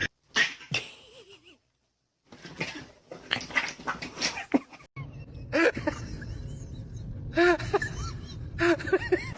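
A pet animal's short calls, each rising and falling in pitch, come in quick groups in the second half, after some scattered clatter and a brief silent gap earlier on.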